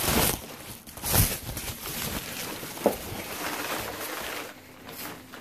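Rustling and knocking of plastic car bumper parts being handled, a few louder knocks near the start and about a second in, with softer rustling in between.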